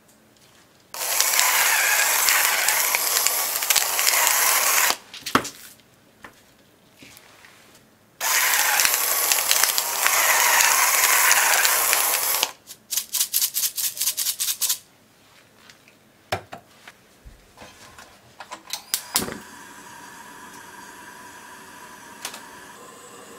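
Electric salt mill grinding salt in two runs of about four seconds each, followed by a run of quick clicks, about five a second. Near the end a gas stove burner clicks and then burns with a steady hiss.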